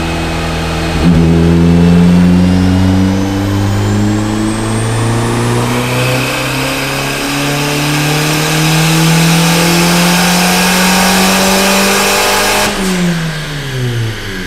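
Turbocharged VW 1.8T 20-valve four-cylinder, fitted with a Garrett GTX3071 Gen2 turbo, making a full-throttle dyno pull at low boost with the boost controller off. The engine note climbs steadily through the revs for about eleven seconds, then the throttle closes near the end and the revs fall quickly away.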